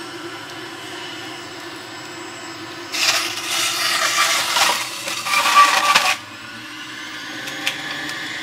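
Breville JE98XL centrifugal juicer running at low speed with a steady motor whine. About three seconds in, kale pushed down the feed chute is shredded against the spinning cutting disc, a loud rough grinding that lasts about three seconds before the motor settles back to its steady run. A couple of light clicks come near the end.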